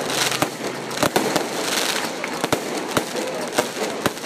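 Fireworks display: aerial shells bursting in a rapid, irregular string of sharp bangs, about three a second, with dense crackling from the glittering stars between them.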